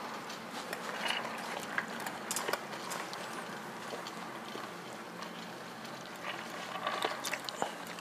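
Low background noise of a large exhibition hall, with scattered small clicks and knocks, more of them about two seconds in and again near the end.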